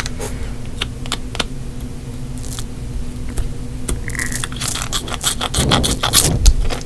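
Irregular clicks and scraping over a steady low hum, with a denser stretch of scraping near the end.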